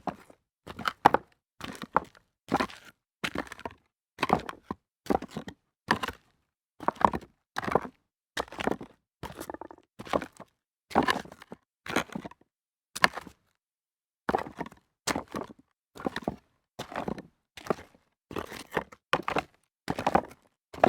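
Footsteps walking over rocks: a steady pace of single crunching, clacking steps, about one to two a second, with stones knocking and shifting underfoot.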